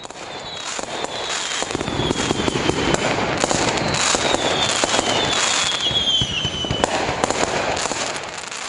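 Fireworks going off in a dense barrage of cracks and pops, with a few whistles that slide slightly down in pitch through the middle.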